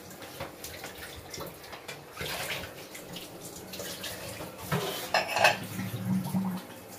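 Tap water running into a stainless-steel sink while a small ceramic cup and dishes are rinsed, with clinks of crockery and cutlery and a few sharper clatters about five seconds in.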